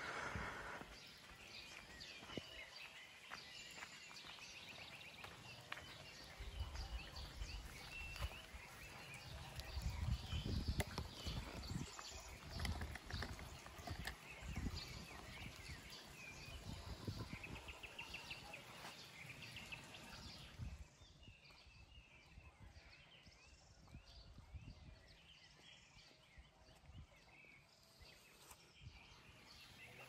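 Nightingale singing faintly in varied chirps and trills, with low thuds and rumbling in the first half.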